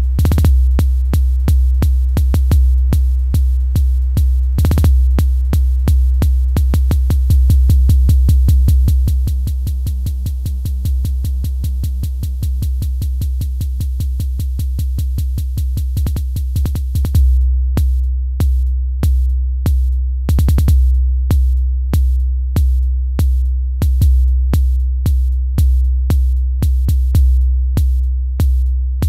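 Electronic music: a deep bass drone with steady held tones above it, pulsed by sharp repeating clicks that crowd together in the middle and then settle into an even, slower beat.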